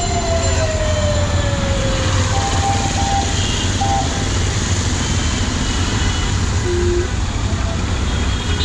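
Busy street traffic on a rain-soaked road: a steady hiss of rain and tyres on wet tarmac over a low engine hum. A siren tone slides slowly down in pitch during the first two seconds, and a few short horn beeps sound later.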